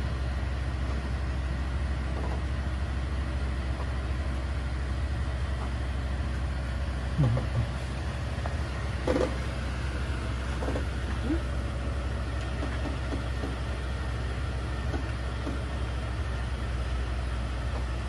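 Propane-powered school bus engine idling with a steady low hum, with a couple of short sounds over it about seven and nine seconds in.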